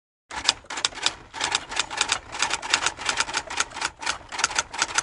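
Typewriter keys clacking in a fast, uneven run of keystrokes, several a second, starting about a third of a second in.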